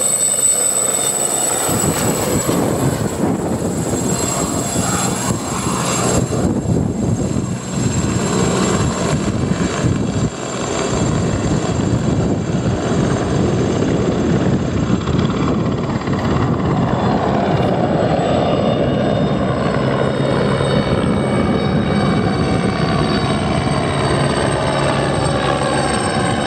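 Aérospatiale SA-318C Alouette II helicopter taking off and flying away: the high whine of its Turbomeca Astazou turboshaft over the steady noise of the rotor. In the last few seconds the sound takes on a sweeping, phasing quality as the helicopter climbs away.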